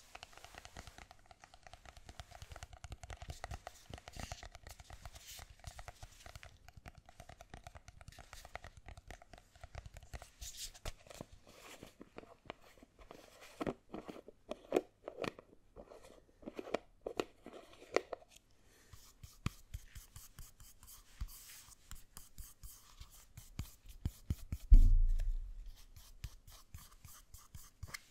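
Hair gel being worked between the hands close to the microphone: many small sticky crackles and clicks, with clusters of louder strokes in the middle. There is one low thump near the end.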